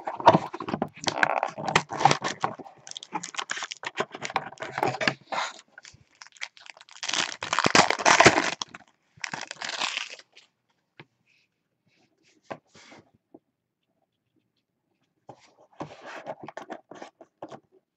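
A trading-card box is torn open and its cellophane pack wrapper ripped and crinkled, in dense bursts through the first ten seconds, loudest about eight seconds in. After a near-quiet stretch with a couple of light clicks, there is a softer rustle of the cards being handled near the end.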